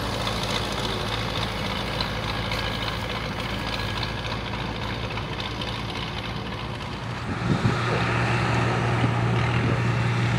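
Tractor diesel engine running steadily as it pulls a loaded trailer across the field. About seven and a half seconds in, this gives way to a louder, deeper diesel drone from tractor and combine machinery working close by.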